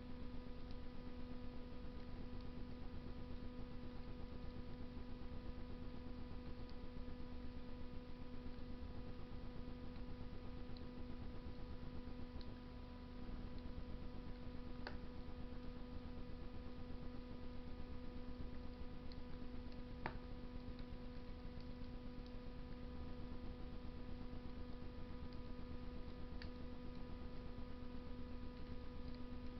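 Wood fire burning in a Russian masonry stove: a low steady rumble with a few isolated sharp crackles from the burning wood, over a steady electrical hum.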